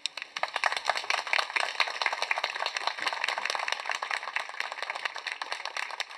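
Audience applauding, the clapping starting suddenly and easing off a little near the end.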